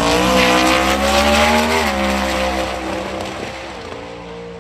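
Ford Mustang drag car launching from the start line at full throttle. The engine's pitch climbs, drops at a gear change about two seconds in, then climbs again as the car pulls away down the strip and fades.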